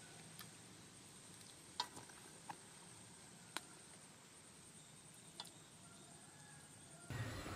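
Near silence: faint background hiss with a thin, steady high-pitched tone and about five faint scattered clicks. A louder background comes in abruptly near the end.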